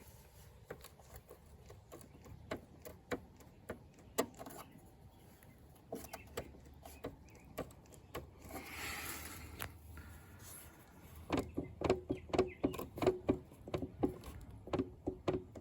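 Toro 22-inch Recycler mower wheel rocked and worked on its drive bearing, giving scattered clicks at first and then, about eleven seconds in, a quick run of clacks at roughly three or four a second. The looseness is the sign of worn-out drive bearings with excessive play.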